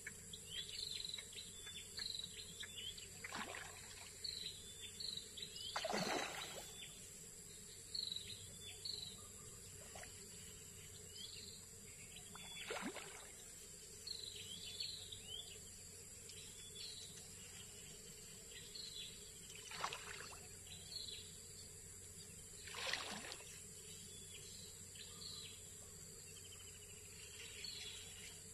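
Outdoor ambience of small birds chirping in many short calls over a steady high insect drone, broken by a handful of brief splashy noises, the loudest about six seconds in and again near the end.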